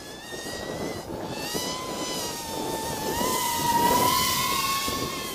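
Griffin 250 racing quadcopter's motors and propellers whining in flight, a steady high tone that drifts up slightly in pitch and grows louder to a peak about four seconds in, then fades.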